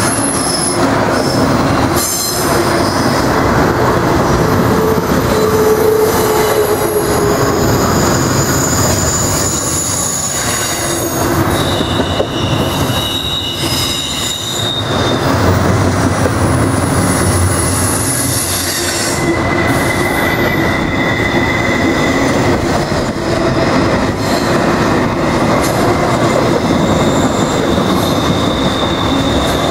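Double-stack intermodal freight train's well cars rolling past close by: a steady loud rumble and rattle of wheels and cars, with high wheel squeals coming and going at several pitches.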